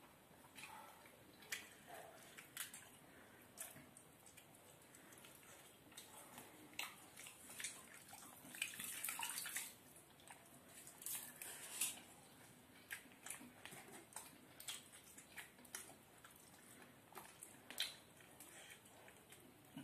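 A hand mixing and scooping pakhala, cooked rice soaked in water, in a steel bowl, with eating sounds: soft wet squelches and many short clicks and smacks, and a longer wet stretch about halfway through.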